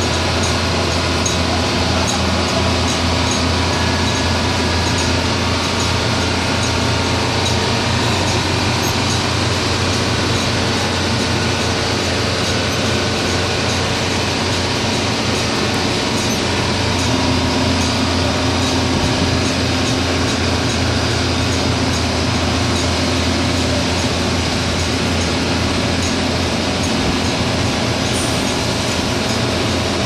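Steady drone of offshore drilling-rig machinery: a strong low hum with several held tones over a constant noisy wash.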